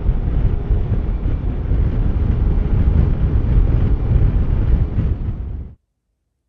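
Wind buffeting a helmet-mounted lavalier mic while riding a Yamaha scooter, with the riding and engine noise beneath it; it cuts off suddenly near the end.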